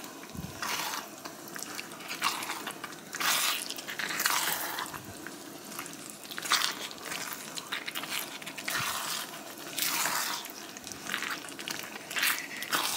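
Chicken and broccoli in a thick sauce being stirred around a wok: repeated wet scraping and shuffling strokes, roughly one a second, with an irregular rhythm.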